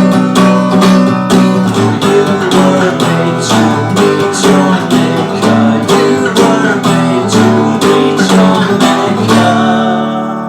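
Acoustic guitar strummed in a steady, quick rhythm with no singing. Near the end the strumming stops on a final chord that rings out and fades.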